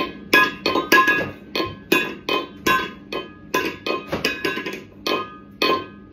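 Metal bowl struck over and over by a cat's paw: a run of clangs, about three a second, each leaving a ringing metallic tone.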